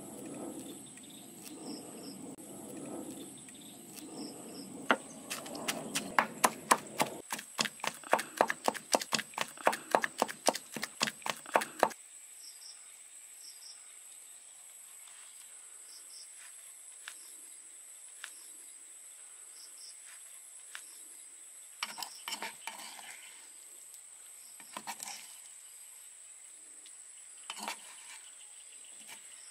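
Pestle pounding fish and chilies in a wooden mortar: rapid, steady strikes, about four a second, for several seconds, then stopping abruptly. Afterwards a few short scrapes of a spoon in the mortar over a steady high insect buzz.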